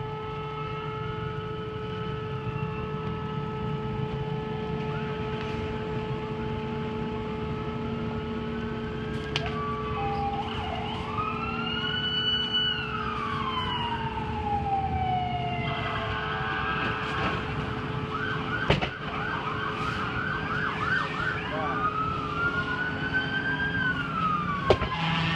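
Emergency vehicle sirens arriving: long rising-and-falling wails from about ten seconds in, then faster yelping sweeps, with more than one siren overlapping near the end. A steady hum runs underneath, and a few sharp knocks stand out.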